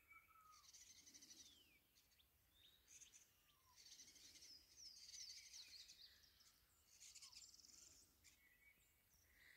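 Faint songbirds chirping: short falling whistles and quick trills from several birds, on and off.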